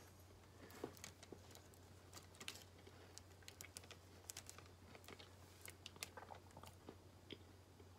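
Near silence: faint room tone with a steady low hum and scattered soft clicks.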